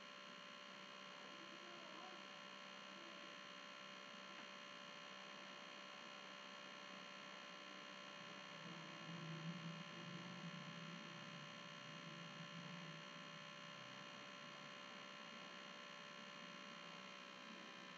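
Near silence: a faint steady electrical hum from the recording chain, with a slight low murmur swelling in the middle.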